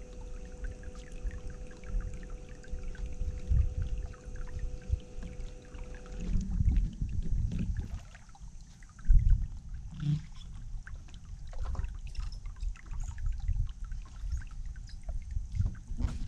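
Electric trolling motor humming steadily, cutting off about six seconds in; after that, water sloshing and lapping against the boat hull with uneven low thumps.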